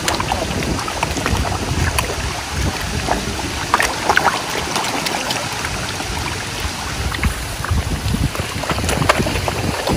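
Crowd of koi splashing and gulping at the water's surface, many small irregular splashes and smacks, over low wind buffeting the microphone.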